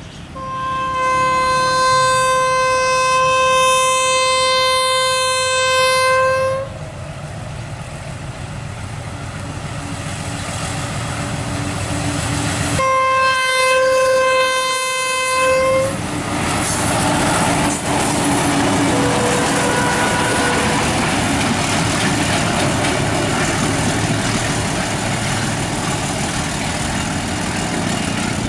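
Locomotive horn of a short Pakistan Railways freight train sounding one long blast of about six seconds, then a second, shorter blast about six seconds later. Between and after the blasts the train's running noise builds and stays loud as it passes.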